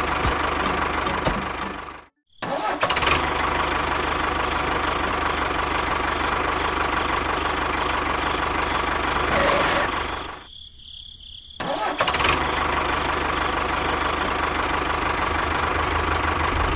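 An engine running steadily, with a low hum. It cuts out abruptly about two seconds in and again briefly around ten seconds in, each time picking straight back up.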